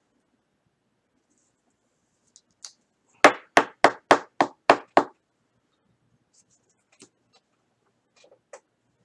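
A quick run of seven sharp knocks, about four a second, starting a little over three seconds in, with a few faint clicks around them.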